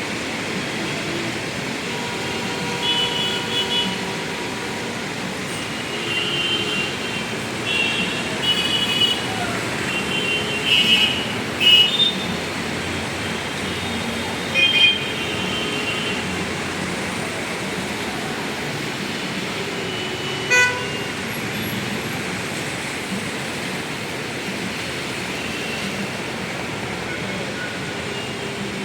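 Busy road traffic with a steady hum of engines and tyres, and repeated short, high-pitched vehicle horn honks bunched in the first half, the loudest about eleven seconds in. One more short, sharp horn beep sounds about twenty seconds in.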